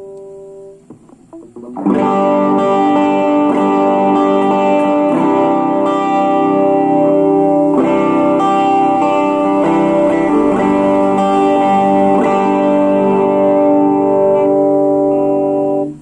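Electric guitar played through a Blackstar Fly 3 mini amplifier: ringing chords and notes, struck again and again, starting about two seconds in and cutting off abruptly near the end.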